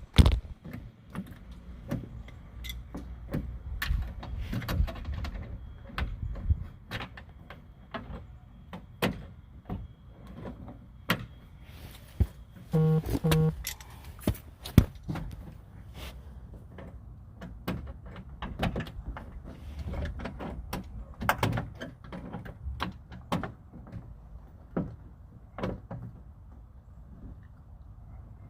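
Scattered clicks, knocks and rattles of metal and plastic parts as the exterior door handle and its linkage bar are worked into a 1995 VW Golf door. About thirteen seconds in come two short tones.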